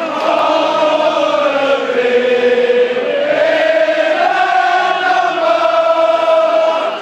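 Large football crowd singing a chant together, holding long notes that slide slowly down and then back up in pitch.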